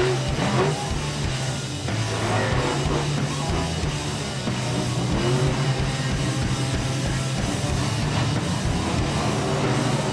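Rock music with electric guitar and drums, loud and continuous.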